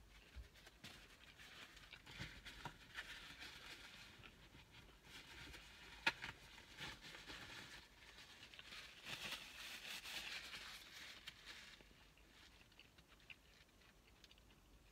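Faint rustling and crinkling of fast-food paper wrappers and bag as food is handled, in two spells, with one sharp click near the middle.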